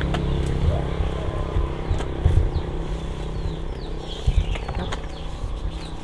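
Small motorbike engine idling steadily, with a few dull knocks as a plastic crate of seedlings is shifted on its rack. Birds chirp briefly in the middle.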